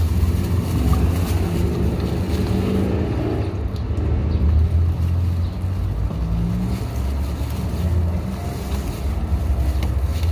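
Steady low rumble of outdoor city street noise.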